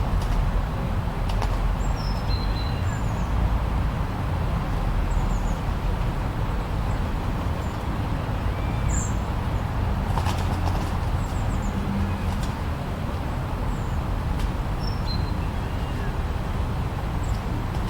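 Steady, low blizzard wind noise, with short high bird chirps scattered through it and a few faint clicks.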